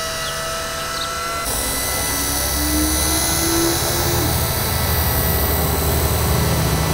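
Eachine E130 RC helicopter hovering, its electric motors and spinning rotor blades giving a steady high whine. About a second and a half in the sound becomes louder and noisier, with a low rumble under the whine.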